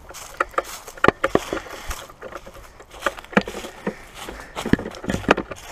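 Footsteps through dry brush, grass and fallen leaves: irregular crunches and twig snaps.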